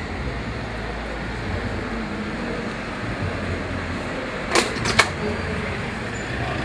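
A vehicle engine running with a steady low rumble, and two sharp clicks in quick succession a little past halfway.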